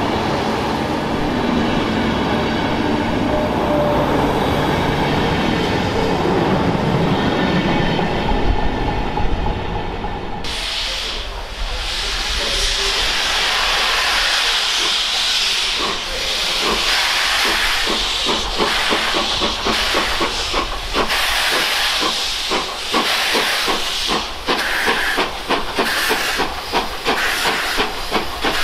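A train rumbling along the platform, then, after an abrupt change about ten seconds in, a steam locomotive hissing steam. From about halfway on, its exhaust chuffs in sharp, even beats that come faster and faster as it starts off.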